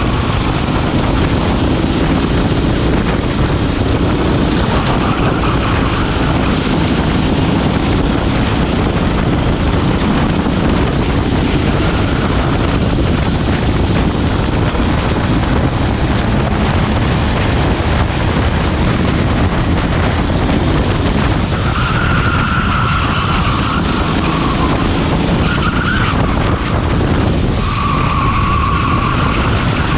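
Kart engine running hard at racing speed, heard onboard, its note rising and falling through the corners, with tyres squealing now and then.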